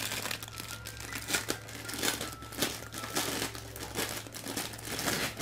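Thin clear plastic bag crinkling and rustling in irregular bursts as hands open it and handle the red plastic tangram pieces inside.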